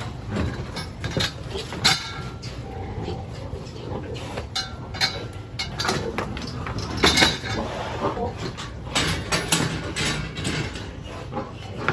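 Pigs in a pen, with many short knocks and clatters and several louder sharp bursts, the loudest about seven seconds in.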